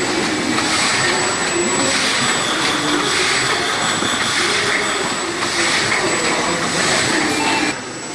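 OPTIMA-1700DS automatic flatbed die-cutting machine running, a loud steady mechanical noise that swells about once a second with its cutting cycle, over a thin steady high tone. It drops briefly near the end.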